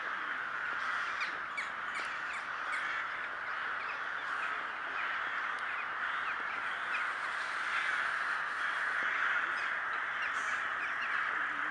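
A huge flock of crows, most likely rooks, cawing together while circling before going to roost. The many overlapping caws merge into one dense, unbroken din.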